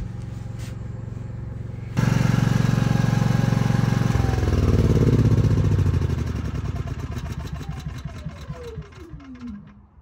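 GenMax 10,500-watt tri-fuel generator engine running steadily, then shut off. It is louder and closer from about two seconds in, and over the last few seconds the engine winds down with a falling whine until it stops.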